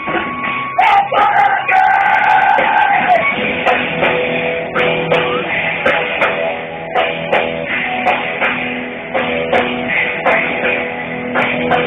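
Live rock band playing amplified electric guitars over a drum kit, heard through a phone's microphone. A long held note sounds about one to three seconds in, then chords run on over steady drum hits.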